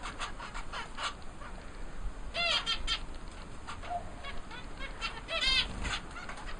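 Aviary birds chirping in short, quick notes, with two louder calls about two and a half and five and a half seconds in.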